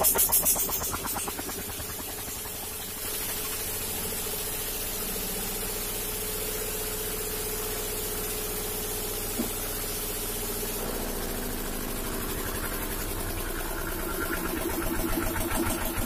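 1987 Kirloskar 5 hp single-cylinder diesel engine running steadily just after starting, with a fast, even knock from its firing strokes. Near the end a louder rhythmic pulsing builds up.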